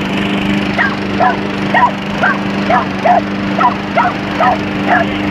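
Dog barking repeatedly at a lawnmower, about two barks a second, over the lawnmower's engine running with a steady hum.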